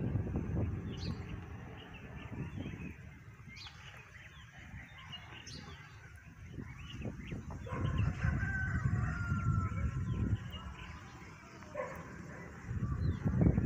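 A rooster crows once, a long call of about two and a half seconds, partway through. Small birds chirp throughout, and a low rumble comes and goes.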